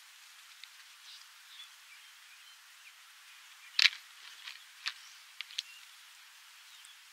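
Impala rams sparring: a sharp clack of horns knocking together just before four seconds in, then several lighter knocks over the next two seconds, over a steady thin hiss. A few faint chirps sound about a second in.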